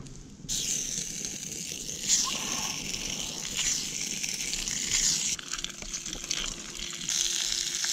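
Pieces of coral trout fillet sizzling on a hot steel plate over a campfire. The sizzle starts suddenly about half a second in as the fish goes onto the plate.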